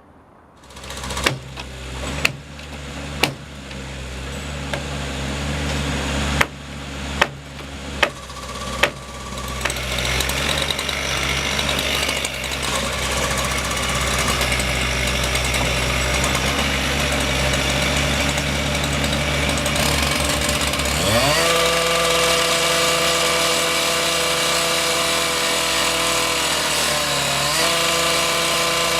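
Construction machinery at work: a series of heavy metallic knocks over a building mechanical drone, then an engine revving up about two-thirds of the way through and holding at a higher pitch, with a brief dip near the end.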